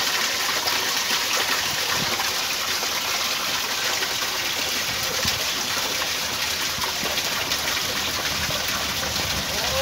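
Steady rush of water jetting from a spout and splashing onto the wooden paddles of a horizontal water-mill wheel.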